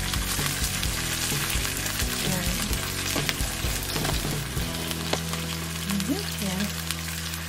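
Canned corn kernels and their liquid sizzling in a nonstick frying pan over sautéed garlic. A wooden spoon clicks and scrapes against the pan during stirring in the first few seconds, then the steady sizzle goes on alone.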